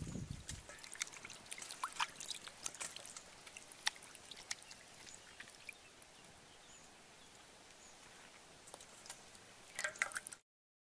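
Water splashing in a steel bowl as raw chicken pieces are washed by hand, loudest in the first half second, then quieter drips and small splashes. Water is poured in briefly near the end.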